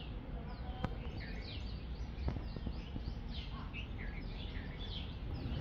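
Many small birds chirping at once: short, quickly falling calls overlapping throughout, over a steady low rumble of background noise, with a couple of faint clicks.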